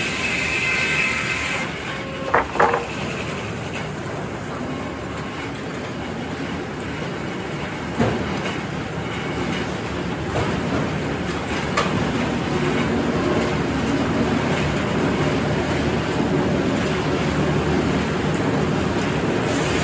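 Sawmill circular head saw cutting through a white oak log, its cutting whine stopping about two seconds in, followed by two sharp clanks. Afterwards the blade spins free and the mill machinery runs on steadily, with a few single knocks.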